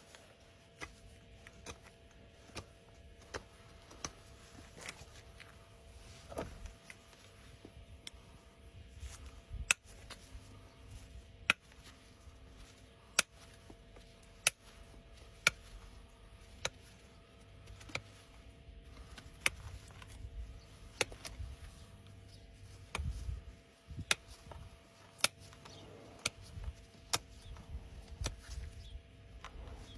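Sharp snaps and clicks every second or two over a low rumble: hoof nippers biting through overgrown horse hoof wall.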